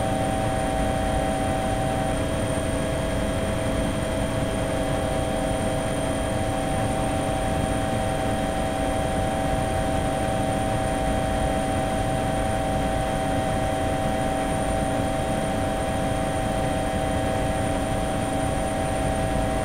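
Steady drone of an aircraft's engines heard from on board, several steady tones held over an even rushing noise.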